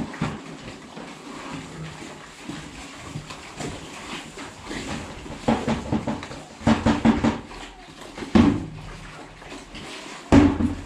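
Several domestic pigs grunting as they eat at a feed trough. The grunts come in short bursts of rapid pulses, starting about halfway through and loudest near the end.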